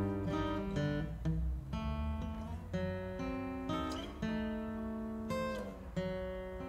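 Solo acoustic guitar playing an instrumental break in a waltz, picked and strummed notes starting about every half second and ringing on.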